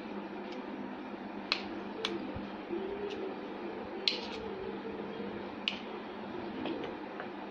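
A metal spoon spreading thick melted chocolate around a stack of biscuits, with a handful of short, sharp clicks as it knocks against the plate, over a steady low background noise.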